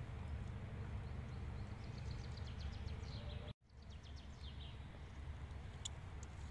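Small songbird singing in woodland, rapid runs of short falling chirps with a couple of sharper single chirps near the end, over a steady low outdoor rumble. The sound drops out for an instant a little past halfway.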